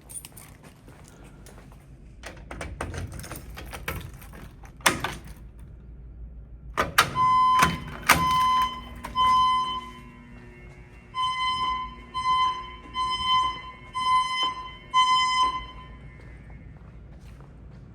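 Knocks and a sharp thunk, then a fire alarm signal sounds in loud pulses of one steady pitched tone, irregular at first and then about once a second, for roughly eight seconds before it stops.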